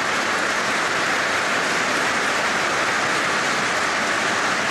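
Sustained applause from a large audience, a dense, even clapping that holds steady.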